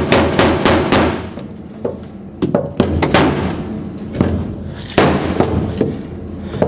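Irregular heavy knocks, about a dozen, of wood being struck against the sheet-steel floor pan of a Chrysler CH, bashing a lifted high spot and kink in the rear driver-side footwell back down.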